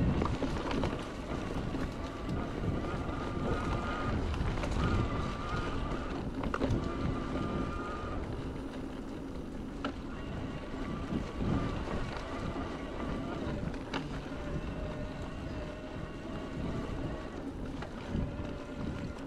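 Electric mountain bike riding along a dirt forest track: tyres rolling over earth and dry leaves and wind buffeting the microphone. The pedal-assist motor's thin whine comes and goes over the rumble.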